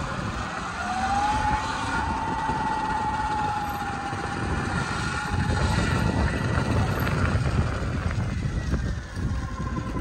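Electric dirt bike's motor whining as it is ridden, the whine rising in pitch about a second in and then holding steady, over a rumble of wind noise.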